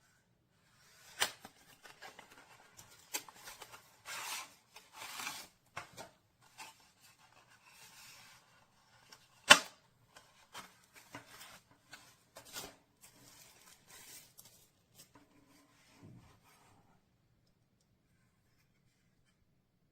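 Handling noise: rubbing and rustling, with several sharp clicks, the loudest about nine and a half seconds in.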